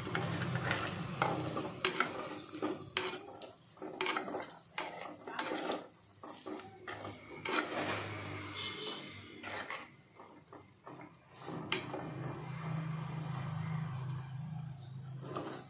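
Wooden spatula scraping and knocking against an earthenware clay pot while it turns potatoes frying in oil, in a run of irregular scrapes and clacks. A low steady hum runs underneath near the start and again near the end.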